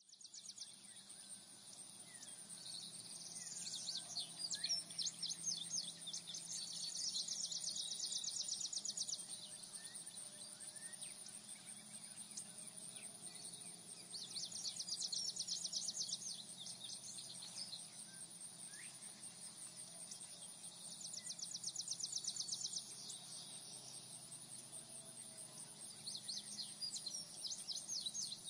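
Insects trilling: a steady high buzz throughout, with five louder, rapidly pulsing trills of about two seconds each, and a few faint bird chirps.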